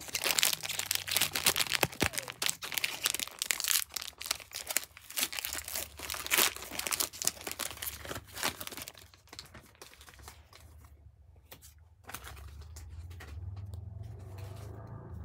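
Foil booster-pack wrapper of a Pokémon trading card pack being torn open and crinkled: a dense run of crackling for about the first nine seconds, then quieter, sparser handling.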